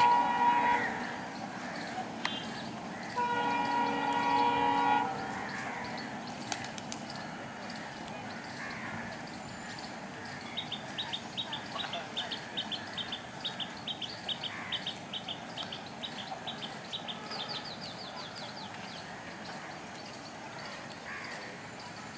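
WDM-3A diesel locomotive sounding its horn twice, a blast that ends about a second in and a second one from about three to five seconds in, then the steady rumble of the engine as it approaches. A bird chirps rapidly midway through.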